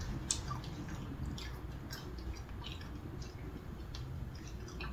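A person chewing a mouthful of taco with her mouth closed: quiet, irregular wet chewing clicks.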